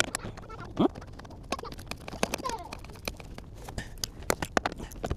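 Irregular light clicks and clacks of hand tools and metal hardware as a car battery's hold-down bracket and cables are fitted back in place.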